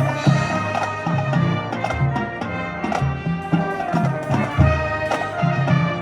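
High school marching band playing a passage of its show, brass carrying sustained chords over a steady pulse of low bass notes and drum strokes.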